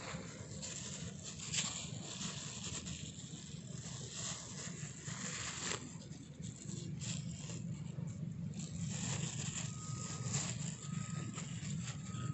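Irregular rustling and scraping of close handling as a freshly caught snakehead is wrapped up in a bag. A faint short high note repeats a few times near the end.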